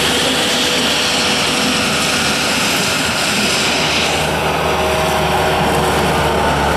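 1998 Bobcat 873 skid steer loader's 73 hp turbo diesel engine running steadily at working speed, with no abnormal noise. Its note changes about four seconds in, as the hiss drops away and a steadier higher tone comes up.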